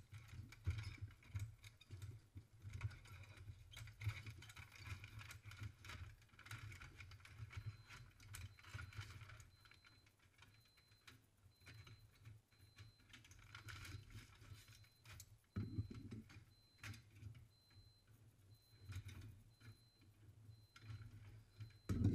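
Steel blacksmith tongs and tools clinking and rattling while blades are handled in the forge, over a low steady rumble. Near the end a louder clank as a red-hot blade is drawn out with the tongs.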